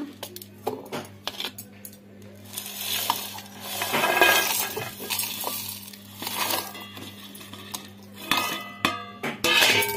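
Whole spices and garlic cloves tipped from a steel plate into a stainless-steel mixer-grinder jar: clinks and rattles of dry ingredients and metal rim against the jar, with pours about three to four seconds in, again around six seconds and near the end. A faint steady hum runs underneath.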